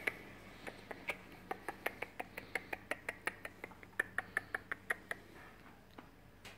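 Quick, sharp finger snaps, about four to five a second, stopping a little after five seconds in, aimed at a Pomeranian puppy.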